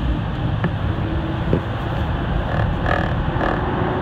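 TTC Line 2 subway train running through a tunnel, heard from inside the car: a steady rumble of wheels on rail. A sharp click comes a little after half a second in, and a few brief higher tones sound past the middle.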